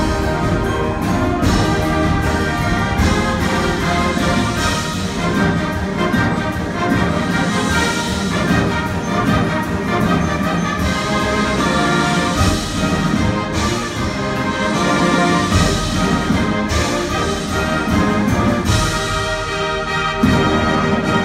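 Large school band playing live, a loud brass-heavy piece with sousaphones, trombones and trumpets over the concert band.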